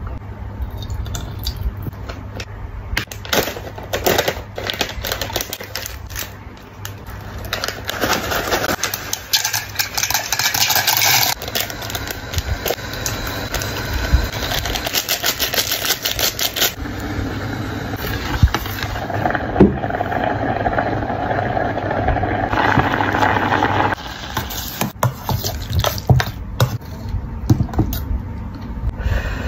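Handling noises from cooking instant pasta in a stainless steel electric cooking pot: packet sachets rustling and tearing, then a fork stirring and scraping in the pot, with many quick clicks and crackles. A steady low hum underneath stops about 24 seconds in.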